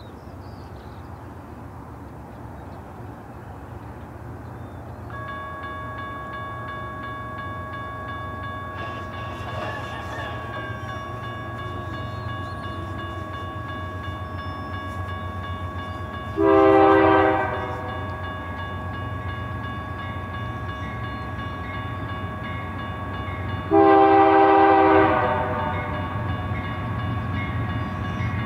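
GE C44-9W and ES44DC diesel locomotives approaching, a low engine rumble growing steadily louder. From about five seconds in, a grade-crossing bell rings steadily. About halfway through and again about two-thirds through, the lead locomotive sounds two short blasts of its air horn for the crossing; these are the loudest sounds.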